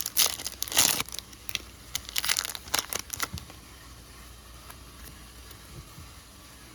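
Trading cards being handled and flipped, sliding against one another in a quick run of rustles and clicks for about three and a half seconds, then only faint room hum.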